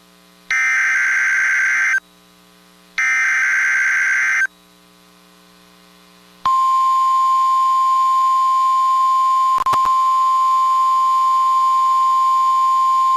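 Emergency Alert System SAME digital header: two buzzy, screeching data bursts about a second apart, the last of the three header repeats. After a two-second pause the steady single-pitch 1050 Hz NOAA Weather Radio warning alarm tone starts about six and a half seconds in, with a brief click near ten seconds.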